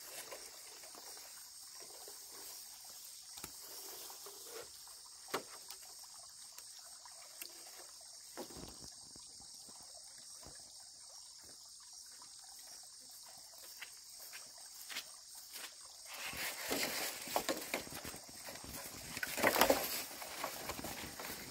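Steady high-pitched insect chorus with a few sharp knocks in the first half. Two louder bursts of noise rise near the end.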